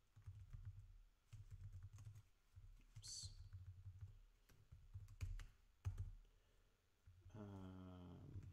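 Typing on a computer keyboard: irregular key clicks, some quick runs, with pauses between. Near the end a short steady hum of a voice lasts about a second.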